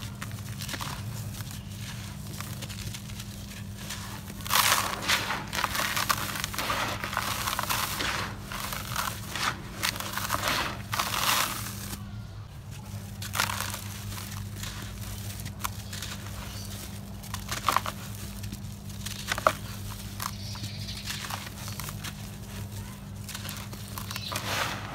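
Dry cement lumps being crushed and crumbled by hand, gritty crunching with powder and grit pouring into a plastic tub. It is densest for several seconds, then thins to scattered crunches and a few sharp cracks, over a steady low hum.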